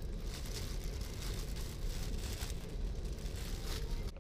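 Steady low rumble of an Airbus A380 cabin, with light crinkling now and then from a plastic-wrapped pyjama being handled.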